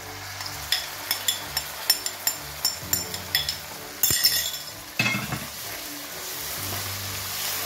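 A spoon scraping and clinking as boiled, ground spinach is emptied from a glass bowl into a hot pan of fried onion masala, with a series of quick clicks in the first few seconds and two louder knocks about four and five seconds in. The oil sizzles as the wet spinach goes in and is stirred, the sizzle swelling near the end.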